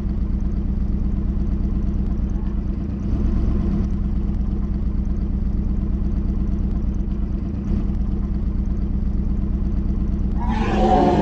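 A motorcycle engine running steadily with a low, even rumble. Near the end, a louder growling sound comes in over it.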